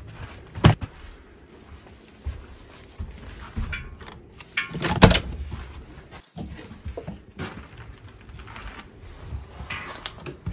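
Two sharp knocks, one about a second in and a louder one about five seconds in, among soft rustling and handling noise.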